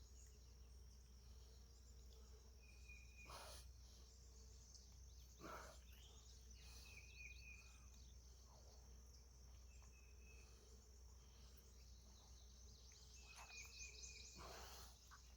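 Near silence: faint outdoor ambience with a steady high-pitched insect drone, a few short high chirps and some soft knocks.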